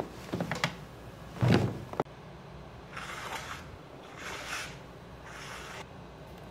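A few knocks and a loud thump, then a cardboard shipping box handled and slid on a glass desktop: three short scraping rustles, each about half a second long.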